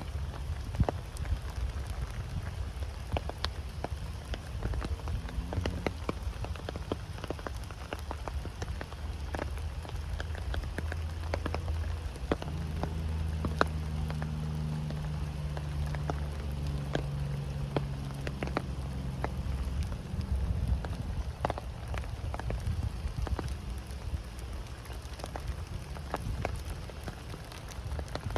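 Steady rain with many individual raindrops tapping sharply on surfaces. A low steady hum runs under it for several seconds in the middle.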